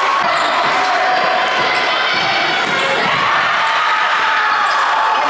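Live game sound in a gymnasium during a basketball game: a basketball bouncing on the hardwood court amid crowd voices and shouting, with the hall's echo.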